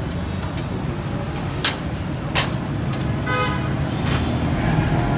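Busy street noise with a steady traffic rumble. Two sharp clinks come about a second and a half and two and a half seconds in, and a vehicle horn toots briefly a little past three seconds.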